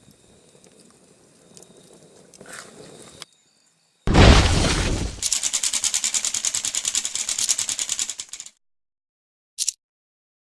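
An edited-in sound effect: a sudden loud crash about four seconds in, then a few seconds of fast, even rattling that cuts off abruptly, and one short blip near the end. Before it there is only faint outdoor background.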